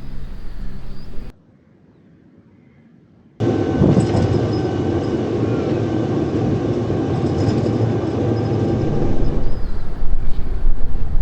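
Rumbling road and wind noise from a moving electric buggy. It drops out abruptly for about two seconds near the start, then returns loud and steady, growing a little louder toward the end.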